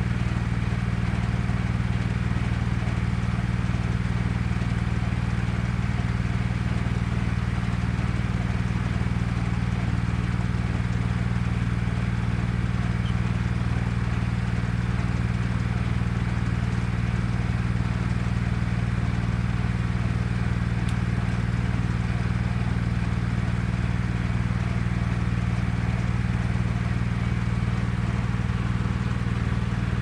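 Belsaw circular sawmill running steadily, driven off a tractor's PTO shaft: an even engine drone with the saw and drive turning, no change in pitch or level.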